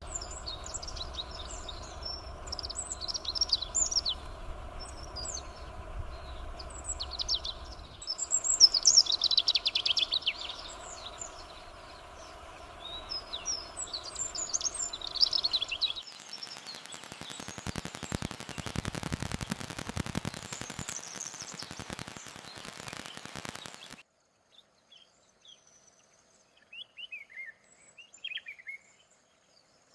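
Small songbirds chirping and twittering in quick high notes, over a steady low hum. About halfway through the chirps give way to several seconds of rushing, crackly noise, and near the end only a few scattered faint chirps remain.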